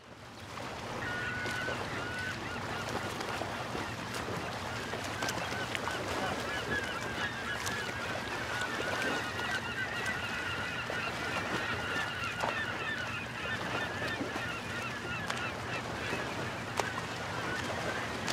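A flock of birds calling continuously, many short calls overlapping, with a steady low hum beneath.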